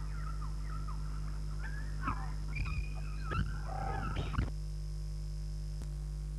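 High, wavering animal-like whines and yelps with a few sharp clicks, over a steady low electrical hum. The whines stop about four and a half seconds in, leaving only the hum.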